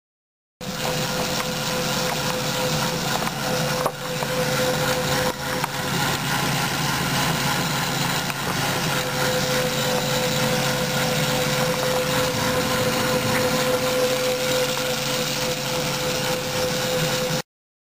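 A bicycle wheel spinning a DC treadmill motor used as a generator to charge a 12 V battery: a steady whirring and rubbing with a constant whine. The sound starts suddenly and cuts off suddenly near the end.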